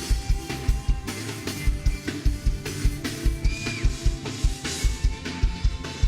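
Live worship band music: a drum kit keeps a fast, steady beat on bass drum and snare under held instrument tones.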